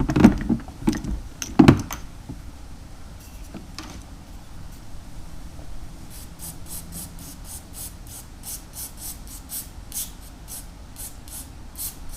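Small metal carburettor parts knocking and clunking on a bench a few times, then a run of short scratchy strokes, about two a second, as the choke parts are worked and cleaned by hand.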